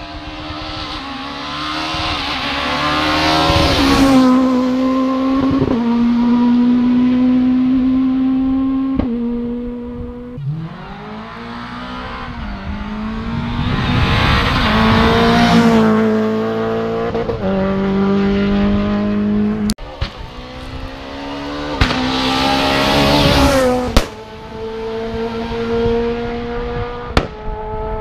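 Rally cars accelerating hard down a tarmac stage one after another, each engine rising in pitch through a run of gear changes and swelling as it comes close. A few sharp cracks sound in the second half.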